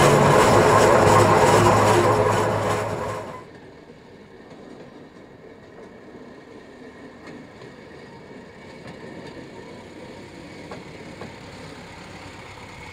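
Steam locomotive on the move, heard from aboard: loud, steady running noise of the engine and its wheels on the rails, which cuts off suddenly about three seconds in. After that only a quiet low hum of a small rail motorcar along the track remains, growing a little toward the end.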